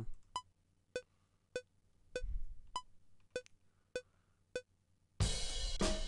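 Cubase metronome pre-count: eight clicks at 100 BPM, about 0.6 s apart, with a higher click on the first beat of each of the two bars. Then a drum-kit beat starts, with kick, snare and hi-hat.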